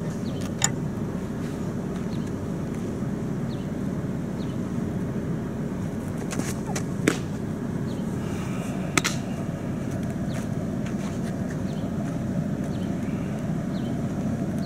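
Steady low outdoor rumble with a few sharp pops: a softball smacking into a catcher's mitt, loudest twice in the second half.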